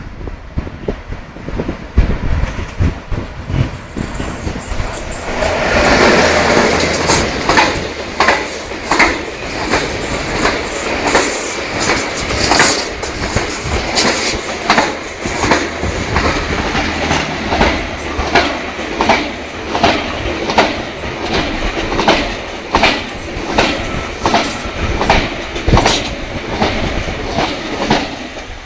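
Elipsos Trenhotel night train of articulated Talgo coaches approaching, then passing close at speed. A low rumble builds for the first few seconds and turns into a loud rush of passing coaches, with regular wheel clacks about one to two a second as the coach joints go by.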